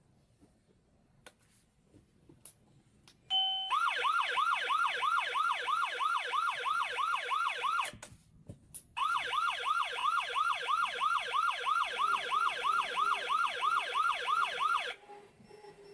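Wireless caregiver pager receiver ringing a siren-style alert tone: rapid falling electronic sweeps, about four or five a second. A few faint clicks and a short beep come first; the alert breaks off for about a second partway through, then resumes and stops shortly before the end.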